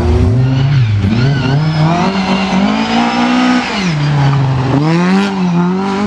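Rally car engine revving hard under acceleration, its pitch climbing for several seconds, dropping sharply once a little past halfway and then climbing again.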